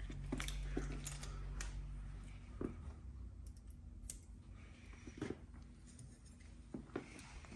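Scattered sharp clicks and small metallic clatter of a lazy-tong pop rivet gun being handled: picked up, loaded with a rivet and its scissor arms opened out. A low steady hum in the background fades out about two seconds in.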